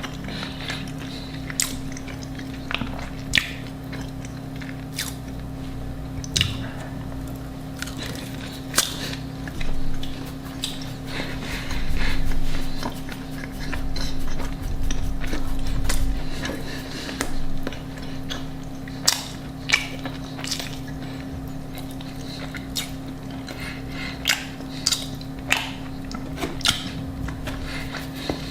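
Close-miked chewing and biting of food, with many short sharp mouth clicks and crunches scattered throughout, over a steady low hum.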